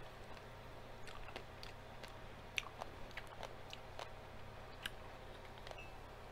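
A person chewing strawberries with whipped topping: soft, irregular wet clicks and smacks of the mouth, a couple of them sharper, over a faint steady low hum.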